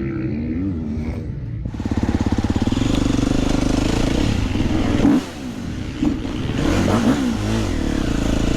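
Motocross bike engine idling, then revving up and pulling away about two seconds in, then running with falling and rising revs.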